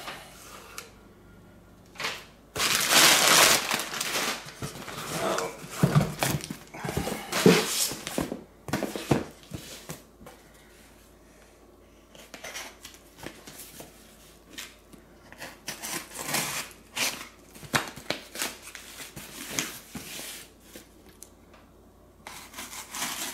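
Packing paper crumpling and rustling as it is pulled out of a cardboard shipping box, loudest in the first half. Then quieter, scattered scratching and rubbing as fingers pick at the packing tape on a cardboard box.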